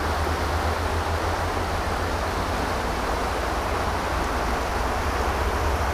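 Fast-flowing river rushing over rocky riffles: a steady, even wash of water noise with a low steady rumble under it.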